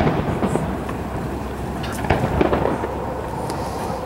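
Aerial fireworks shells bursting: the rumble of a boom fades away, then a few sharper, smaller pops come about two seconds in.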